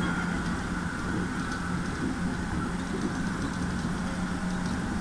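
211 series electric train running on plain track, heard from inside the driver's cab: steady rumble and wheel-on-rail noise with a constant low hum.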